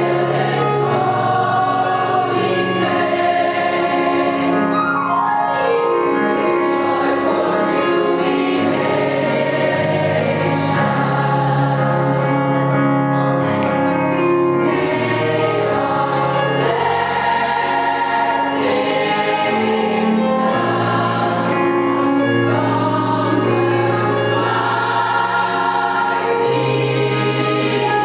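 Gospel choir singing in harmony, long held notes over a steady bass line.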